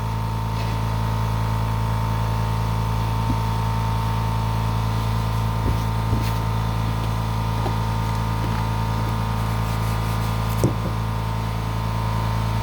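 Air compressor running steadily with a constant motor hum while it builds up air pressure for a resin-casting pressure pot.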